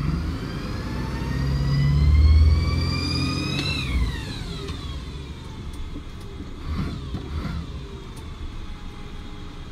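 DAF CF 75 garbage truck's diesel engine at full throttle, heard from inside the cab: its pitch and a whine climb steadily for nearly four seconds, then fall away as the throttle comes off, settling into a steady lower run.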